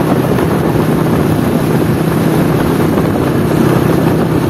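Motorcycle engine running steadily as the bike rides along, heard from the rider's seat with road and wind noise mixed in.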